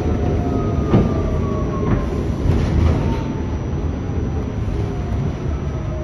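R46 subway car running into a station, its traction motors whining downward in pitch as the train slows, over steady wheel-on-rail rumble with a couple of wheel clacks about a second apart. Heard from inside the car.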